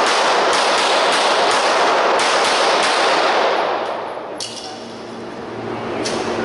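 Service pistol firing quick strings of shots, several a second, with the echo of each shot running into the next. After a pause of about a second and a half near the middle, single shots follow.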